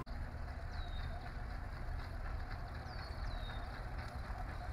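Outdoor ambience: a steady low rumble, with three short, faint, high chirps that fall in pitch, one about a second in and two close together near three seconds.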